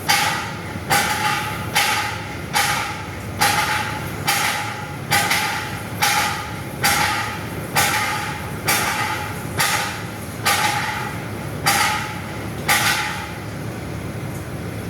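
Strong, regular banging, about one heavy bang a second, each with a brief ringing tone, over a steady low rumble; the bangs stop about 13 seconds in.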